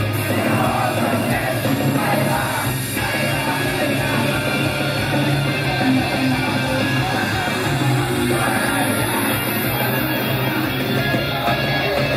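Loud, fast rock-style idol-pop song with electric guitar and singing, played over a live stage sound system.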